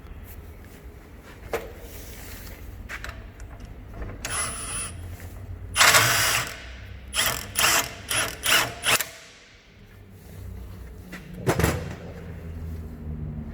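Ratchet wrench working in a series of short strokes, winding coil spring compressor tools down on a shock-absorber strut's spring. A low steady hum runs beneath.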